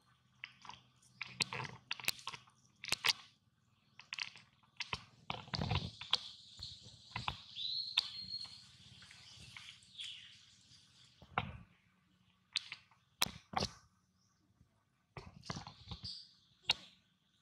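Crackling and clicking of dry leaf litter as macaques shift and handle a nursing newborn, in scattered irregular bursts. A short high squeak sounds about eight seconds in.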